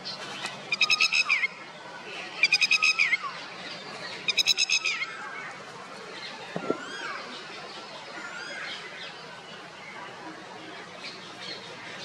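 Red-wattled lapwing giving three quick bursts of rapid, sharp, repeated alarm notes in the first five seconds. Softer chirps from other small birds follow.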